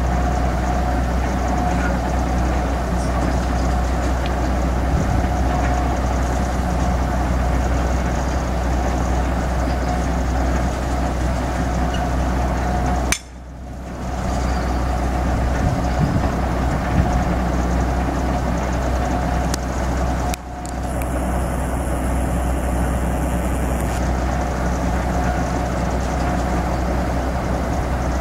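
A large crawler crane's engine idling steadily: a low, even running rumble with a steady hum above it. The sound drops out briefly twice, about halfway through and again about two-thirds of the way in.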